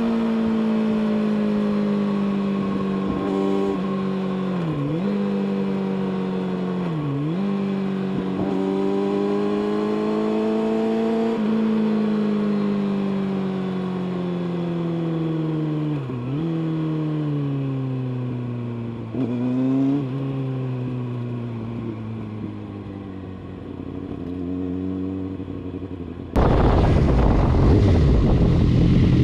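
Kawasaki ZX-6R's inline-four with an Akrapovic exhaust running on the move. Its note sinks slowly in pitch, with several quick dips in pitch that recover at once. Near the end a louder, rougher low rumble suddenly takes over.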